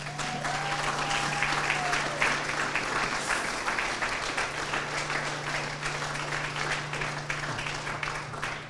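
Audience applauding steadily, the clapping tailing off near the end. One held high note, like a cheer, rises over it in the first two seconds, and a steady low hum runs underneath.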